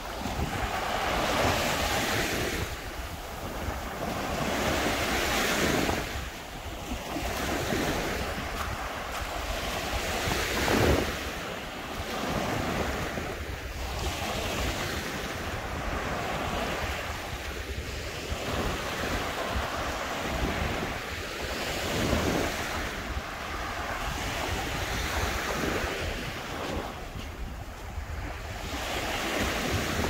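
Baltic Sea waves breaking and washing up a beach, the surf swelling and falling back in irregular surges every few seconds. Wind rumbles on the microphone underneath.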